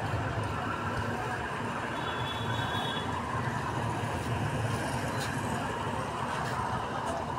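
Steady street background noise: a continuous low rumble of traffic, with a few faint clicks.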